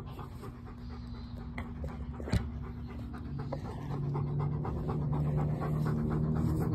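A dog panting in quick, even breaths that grow louder from about four seconds in. One sharp knock sounds about two and a half seconds in.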